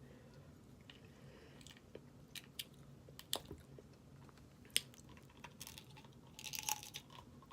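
Close-up eating sounds of snow crab legs: scattered sharp cracks and crunches of shell with chewing between them, and a denser crackling cluster about six seconds in.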